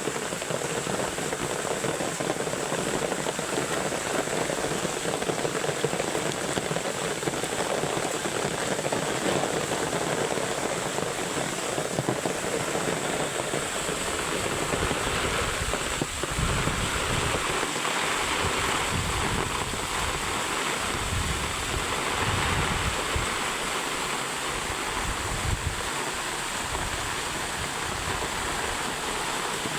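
Heavy rain pouring down, mixed with the rush of fast-flowing water in a small swollen river. About halfway through the sound turns brighter and a low rumble comes and goes.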